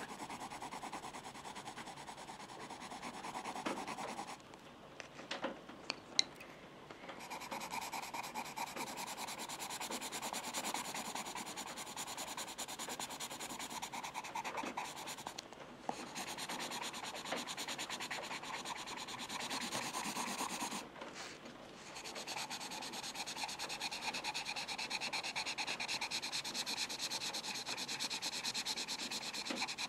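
Pencil lead rubbing back and forth on paper in quick, steady strokes, like shading or scribbling, stopping briefly three times. A few light taps come during the first pause, about six seconds in.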